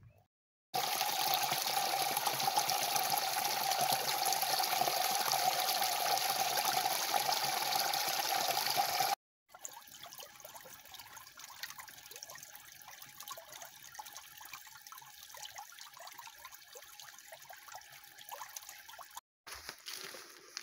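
Running water in two takes. First a loud, steady rush lasts about eight seconds. After a cut, quieter water trickles over a stone lip into a small pool for about ten seconds.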